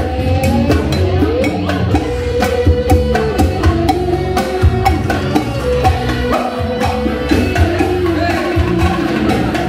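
Live band music with a steady beat of frequent sharp percussion hits over a strong bass line.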